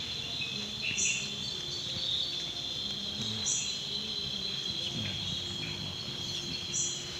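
Crickets trilling in a steady chorus. A short, higher-pitched call breaks in three times, about every three seconds.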